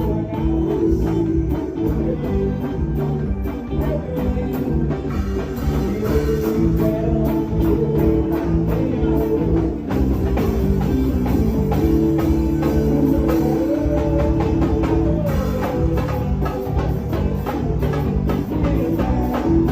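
Band music with drums and a steady beat under held melodic notes.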